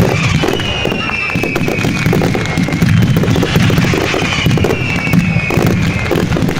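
Fireworks barrage: a dense run of bursts and crackle over a low rumble, with several whistling tones that slowly fall in pitch.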